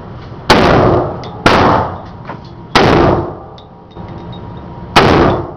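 AR-15 rifle firing four shots at uneven intervals, the last after a pause of about two seconds. Each sharp report is followed by about a second of fading echo.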